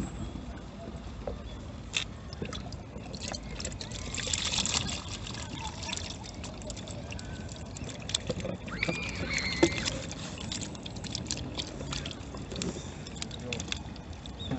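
Water trickling faintly, with scattered small clicks and knocks throughout and a brief wavering high-pitched sound about nine seconds in.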